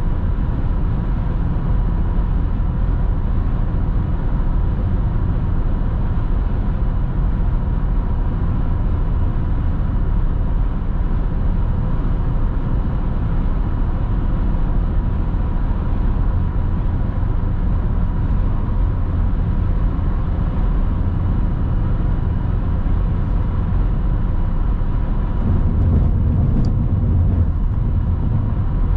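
Steady road noise of a moving car heard from the dash: a low rumble of tyres and engine, swelling louder for a few seconds near the end, with a faint steady whine underneath.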